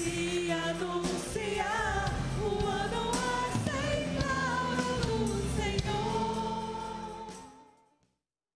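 A gospel worship song: voices singing over a live band with electric guitar. It fades out to silence near the end.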